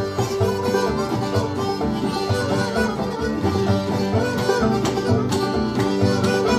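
Old-time string band music: banjo and guitar picking a lively tune with a fiddle.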